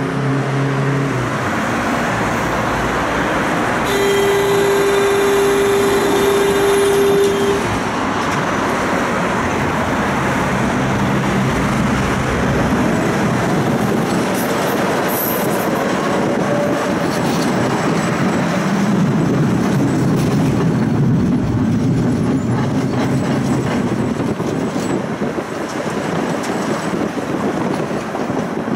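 Interior of a Budapest tram at a stop and pulling away. A steady buzzer-like tone sounds for about three and a half seconds a few seconds in, then the tram runs on its rails with a continuous rumble and faint rising motor whines.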